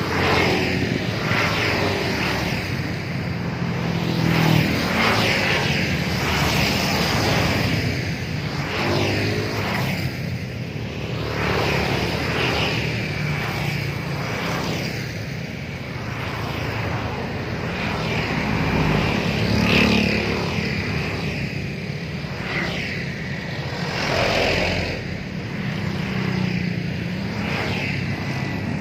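Road traffic passing one after another: motorbike and car engines rising and falling as each goes by, over a steady hum of traffic.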